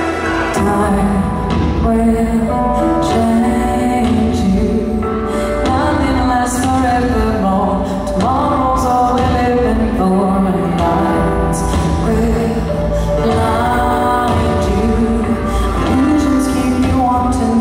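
Live pop song: a woman sings lead over a full band, her voice coming in about half a second in after the instrumental intro, with drum hits now and then.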